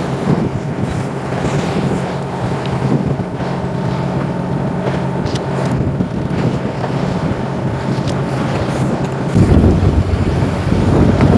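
A fishing boat's engine running with a steady low hum, and wind buffeting the microphone. The wind gets louder about nine seconds in.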